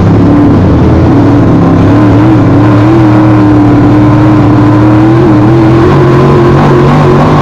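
Race car engines running hard at racing speed, loud and continuous, their pitch wavering a little up and down without any break.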